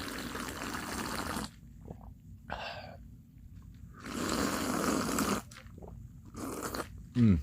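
A McDonald's fountain Coke being drunk in two long noisy sips, the first about two seconds and the second about a second and a half, with short swallowing sounds between them. Near the end there is a brief, loud, low sound that falls in pitch.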